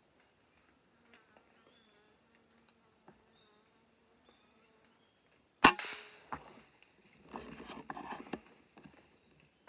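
A single air rifle shot fires about two-thirds of the way in: one sharp crack with a short ring. About a second and a half later comes a burst of rustling in leaves and branches lasting about a second. Before the shot, insects buzz faintly.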